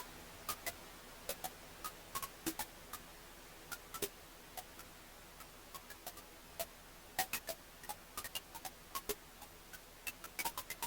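Wood fire burning in a fireplace, crackling with irregular sharp pops and snaps over a faint steady hiss, several pops close together about seven seconds in.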